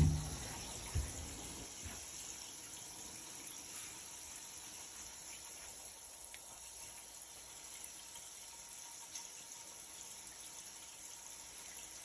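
Faint steady rush of running water, with a thump at the very start and a softer knock about a second in.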